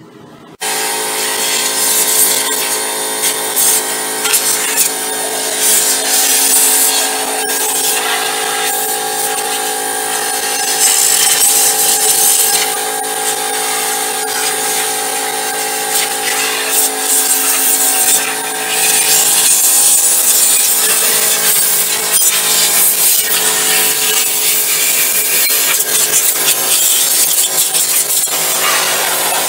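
Small electric motor running steadily with a loud rush of air, switched on abruptly about half a second in, used to clear dust out of an open desktop PC case.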